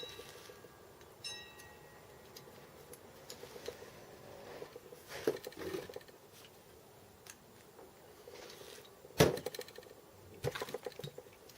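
Metal parts of a home-built lathe steady rest clinking and knocking as they are handled during assembly: a ringing clink about a second in, scattered small clicks, and one sharp knock later on.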